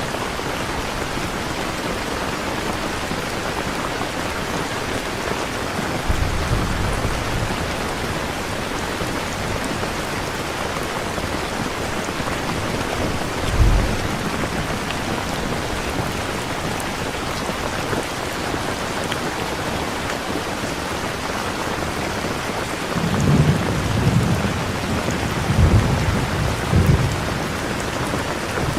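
Steady heavy rain hissing, with low rolls of thunder a few seconds in, briefly at about the midpoint, and several in a row near the end.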